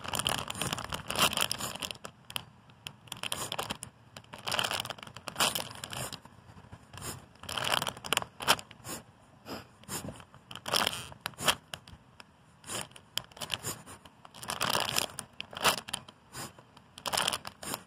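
Clear plastic bag around a squishy toy crinkling in short, irregular bouts as the toy is squeezed and turned in the hands.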